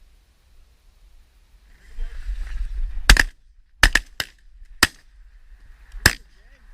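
A volley of about six shotgun shots from several hunters firing at Canada geese, spread over about three seconds with a quick cluster of three near the middle. A rush of noise comes just before the first shot.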